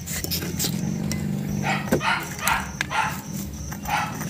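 A dog barking several times in quick succession, starting about a second and a half in, over a steady low hum.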